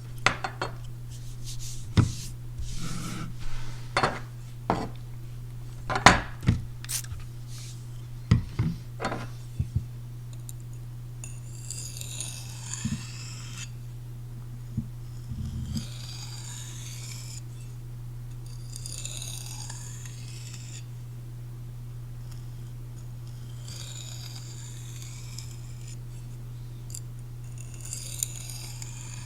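Sharp clicks and knocks of a knife and sharpening gear being handled, then five slow, even strokes of a Chris Reeve Sebenza's Magnacut steel blade across a sharpening stone, one about every four seconds, each a rasping hiss about two seconds long. A steady low hum runs underneath.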